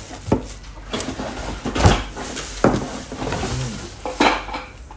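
A metal pressure cooker being handled: a few sharp clanks and knocks, about four, spaced roughly a second apart.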